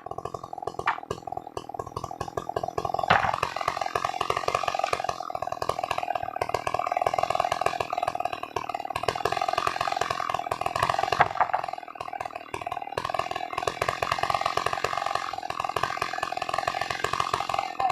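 New West PRO 888 chainsaw's two-stroke engine running steadily, getting louder and brighter about three seconds in.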